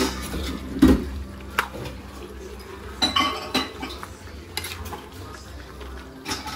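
Metal spoon clinking and scraping against a metal wok as pork and sliced chilies in liquid are stirred, in irregular knocks.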